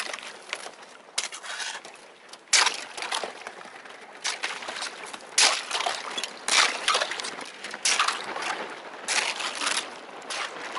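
Thin first ice, about half a centimetre thick, cracking and crunching as an inflatable kayak's bow and paddle break through it, with water sloshing. The loud crackling bursts come about every one to two seconds with the paddle strokes.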